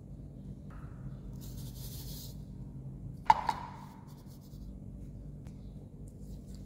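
Powdered ingredients being tipped into a stainless steel mixing bowl: a soft hiss of pouring powder, then a single sharp clink on the steel bowl with a short ring a little past halfway, over a steady low hum.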